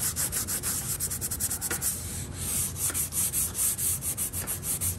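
Red Scotch-Brite abrasive pad scrubbed by hand over the steel foot of a Hay Budden anvil: a scratchy rubbing hiss in quick back-and-forth strokes, several a second. The pad is wearing dried gold paint off the high spots so that it stays only in the stamped serial number.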